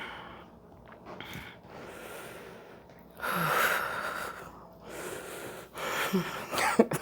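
A person breathing heavily and gasping: several noisy breaths, the longest and loudest about three seconds in, some with a brief catch of voice. Near the end there is a short sharp click.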